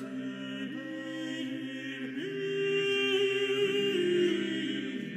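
Background music: voices singing a slow chant in long held notes that move step by step, growing louder in the middle and easing off near the end.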